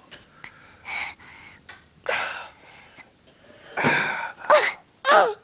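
Several loud, breathy gasp-like bursts of breath, then near the end two short high-pitched squeals from a toddler, each falling in pitch.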